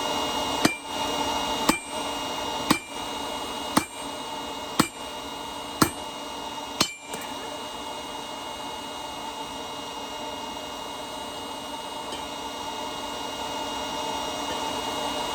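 Hammer blows on a hot railroad spike on an anvil: seven evenly spaced ringing strikes about one a second, which stop about seven seconds in, leaving a steady background hum.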